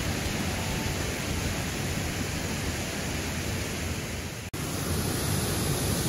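Steady rush of a small waterfall and stream, an even hiss with no pauses. It cuts out for an instant about four and a half seconds in.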